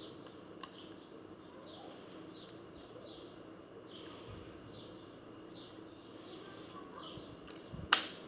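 Birds chirping steadily in the background, then a single sharp shotgun shot a little before the end that dies away quickly.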